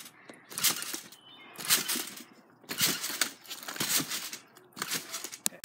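A trampoline mat being bounced on by a rider holding a stunt scooter: a noisy whoosh with each bounce, about one a second.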